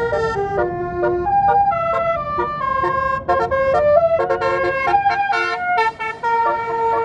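Tour bus's 'basuri' telolet horn playing a quick melody of short stepped notes, over the low rumble of the bus engine, which fades about six seconds in.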